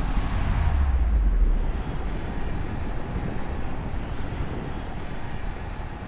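Deep rumbling noise with a windy hiss over it. It is strongest in the first second and a half, then settles to a steady rumble.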